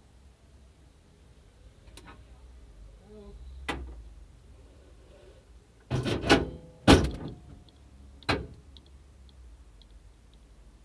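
Hands handling a camera on the sheet-metal bonnet of a 1986 Opel Corsa A: a couple of light knocks, then two loud thumps close together about six and seven seconds in, and one more knock a little after eight seconds.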